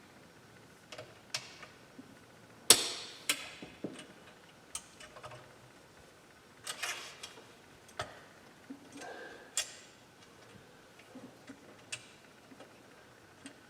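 Irregular clicks and clacks of air-line fittings and pipe being handled and pushed together while a three-way fitting goes onto the compressed-air line, with the loudest sharp clack about three seconds in.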